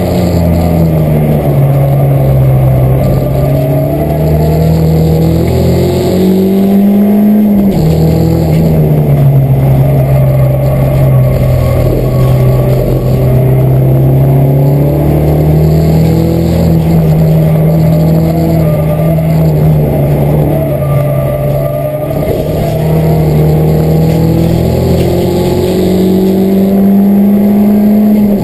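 Peugeot 207 race car's engine heard from inside the cockpit under racing load, its revs climbing and falling through the lap with a sudden drop about seven seconds in.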